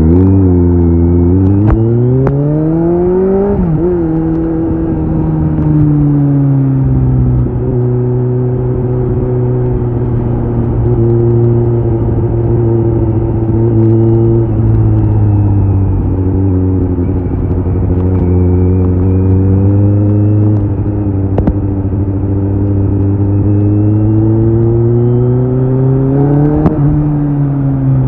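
Kawasaki Z900's inline-four engine running through an SC-Project CRT titanium slip-on exhaust, heard from the rider's seat. The revs climb for about three seconds and drop sharply, then hold fairly steady with slow sags and rises, climbing and dropping again near the end.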